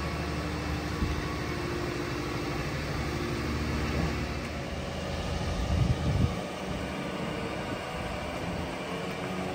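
Diesel engine of the lifting machinery running steadily, with a brief louder surge about six seconds in.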